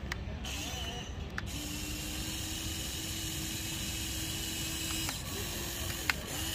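Huina RC excavator's electric arm motors running as the boom lifts and the bucket curls: a steady electric whine that starts about a second and a half in and dips in pitch briefly a few times near the end, with a few sharp clicks.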